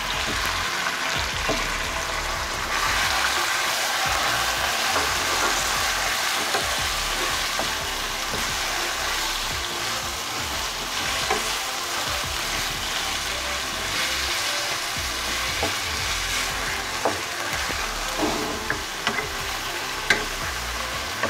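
Raw beef mince sizzling in hot oil in a nonstick karahi as it starts to fry, with a wooden spatula stirring and scraping through it. Now and then the spatula knocks lightly against the pan.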